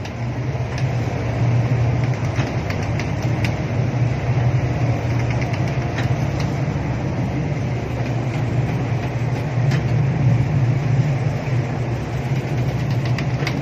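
Boat engine running steadily with a low hum, under a broad rushing noise and a few faint clicks. This is the sound of a coast guard patrol boat under way while towing a disabled vessel.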